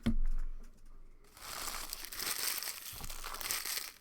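A thump, then plastic wrapping crinkling and tearing as a sealed trading-card box or pack is ripped open, a dense run of crackly rustling that starts about a second and a half in.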